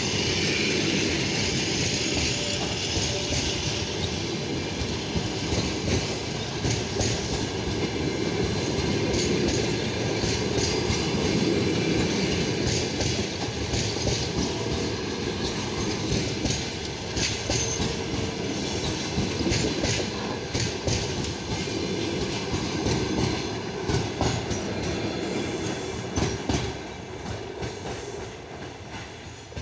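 Passenger coaches of a departing train rolling past at low speed, wheels clattering over rail joints over a steady rumble. The sound fades over the last few seconds as the last coach moves away.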